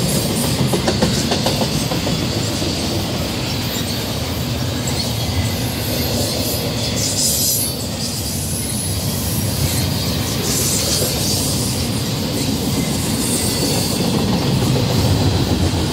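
Double-stack intermodal freight train's well cars rolling past close by: a steady rumble of steel wheels on rail with rhythmic clickety-clack over the rail joints.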